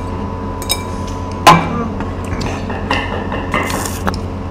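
Chopsticks clicking and tapping against ceramic bowls and a plate during a meal, with one sharper knock about a second and a half in, over a steady background hum.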